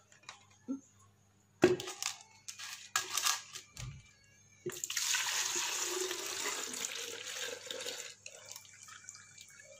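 Soaked, ground almond and poppy-seed paste being squeezed by hand over a plastic jug: a few light knocks and handling clicks, then the milky liquid streams and splashes into the jug for about three seconds before trickling off.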